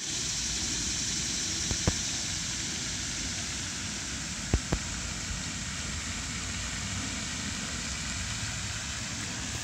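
Steady, even rushing noise with a few faint clicks about two seconds and four and a half seconds in.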